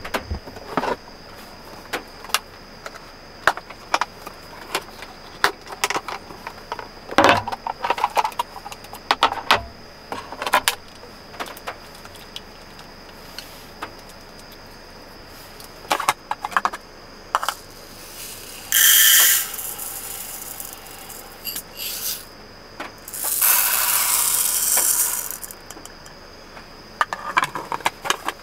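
Small clicks, taps and rustles of food packaging and containers being handled on a table, then dry uncooked rice poured into the inner pot of a small THANKO lunchbox-style rice cooker, a dry hiss of falling grains lasting about two seconds.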